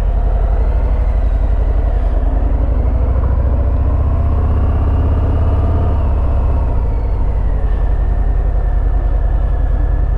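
Harley-Davidson Fat Bob's Milwaukee-Eight 107 V-twin running at low speed with a deep, steady rumble, its note rising a little through the middle and easing back after.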